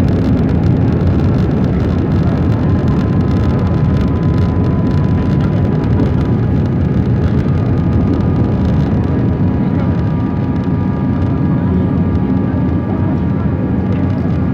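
Steady cabin noise of an Airbus A320 in flight on descent: a low, even rush of engines and airflow, with faint steady whining tones from the engines.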